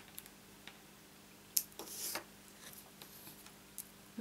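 Small handling noises of craft tools and paper on a desk: a sharp click about one and a half seconds in, then a short rustle of paper, with a few faint ticks afterwards.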